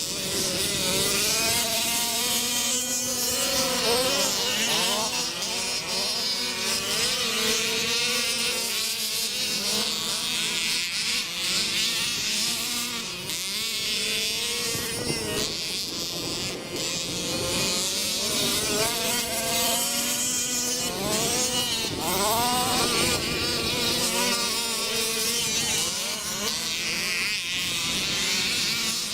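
Engines of small off-road Baja vehicles buzzing as they run a dirt track, their pitch rising and falling as they rev and ease off, with more than one engine heard at once; sharp rising revs about 4 seconds in and again around 21 to 23 seconds in.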